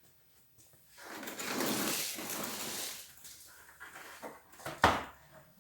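Handling noise from a wet-and-dry vacuum cleaner's plastic body: a rough scraping rustle of about two seconds, fading, then one sharp knock near the end.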